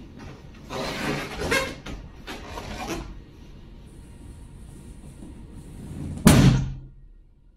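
Inflated crystal latex balloon squeaking and rubbing under a person's weight, then bursting with a single loud pop a little after six seconds in.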